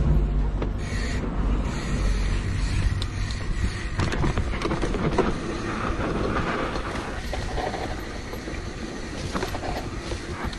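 Mountain bike descending a rough dirt singletrack heard from a rider-mounted camera: steady wind noise on the microphone over the rumble of tyres on dirt and the rattle of the bike over bumps, with grass brushing past.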